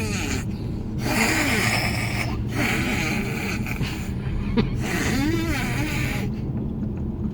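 A child making growly, breathy monster noises in rasping bursts, the pitch sliding up and down, over a steady low cabin hum.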